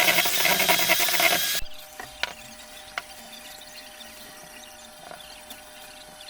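A small electric motor running loudly with a rough whirr, cutting off suddenly about a second and a half in. After that come a few light clicks and knocks over a faint steady hum.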